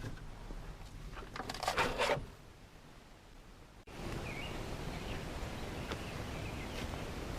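A short burst of handling noise about a second and a half in. After an abrupt cut, steady outdoor background with a few faint bird chirps.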